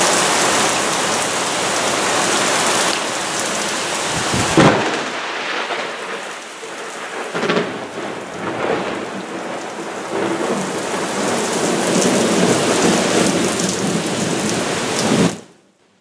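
Heavy rain pouring down in a thunderstorm, with thunder. A sharp loud crack comes about four and a half seconds in, followed by more rumbles, and the sound cuts off just before the end.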